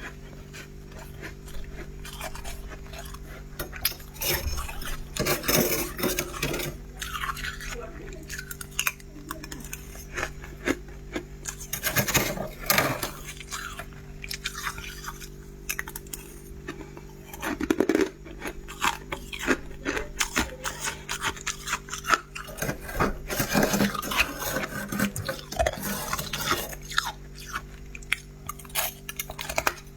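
Freezer frost being scraped and then bitten and chewed, giving many short, irregular scrapes and crunches over a steady low hum.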